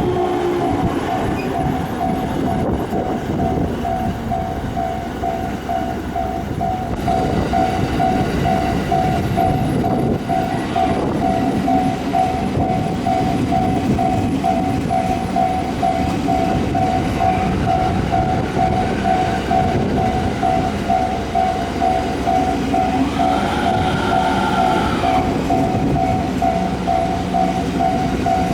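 Japanese level-crossing alarm bell ringing steadily, about two strikes a second, while a train runs past with a dense steady rumble. A short horn-like tone sounds near the end.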